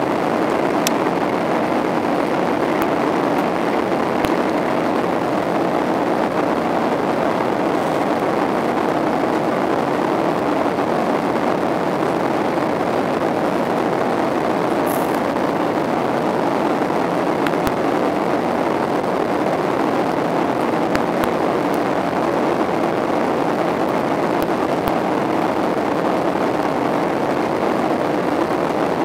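Steady cabin noise inside a Boeing 737-800 airliner: an even rush of engine and airflow noise that holds at one level throughout, with a few faint clicks.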